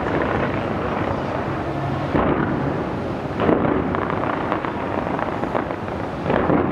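Fireworks display going off continuously, a steady rumble of booms and crackle with louder booms about two, three and a half and six and a half seconds in.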